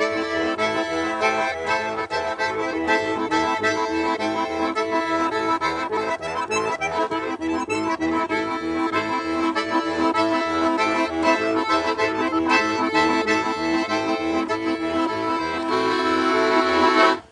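Bayan (Russian button accordion) playing an instrumental passage: a melody over a pulsing bass-and-chord accompaniment, settling onto a held chord near the end.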